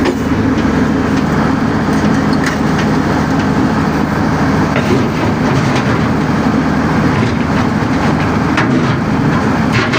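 Diesel engine of a heavy demolition machine running steadily, with scattered knocks and cracks of debris being worked.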